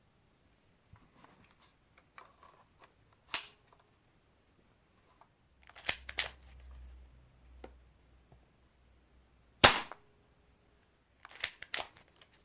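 Spring-powered Colt 25 copy airsoft pistol being handled, cocked and fired: light clicks at the start, then several sharp snaps in ones and close pairs, the loudest single snap about three-quarters of the way in.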